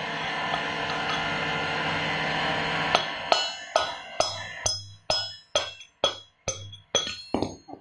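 Background music: a held chord, then from about three seconds in a steady beat of short, ringing percussive notes, about two a second.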